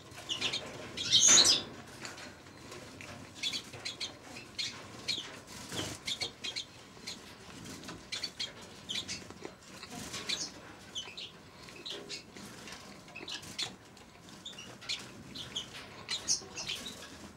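Eurasian siskins in an aviary giving short, scattered chirps and call notes, with one louder burst about a second in.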